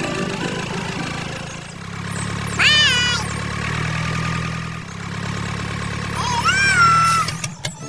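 A cat meowing twice, each call rising then falling in pitch, over a steady low drone.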